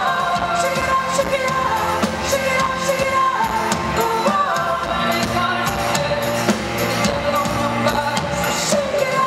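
Live band playing loudly with a woman singing lead, heard from within the concert audience.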